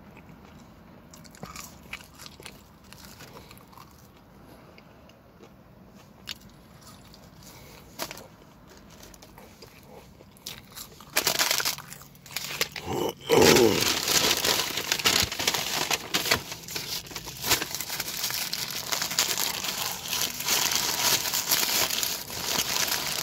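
A quiet stretch with a few small clicks, then, from about halfway, loud continuous crinkling of a Burger King hamburger's paper wrapper being handled and unwrapped, with one loud rub just after the crinkling begins.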